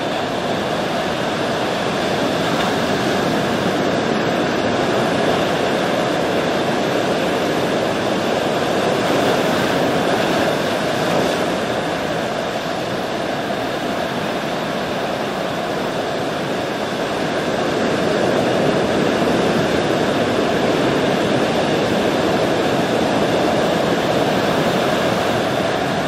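Ocean surf: a steady roar of breaking waves that slowly swells and eases.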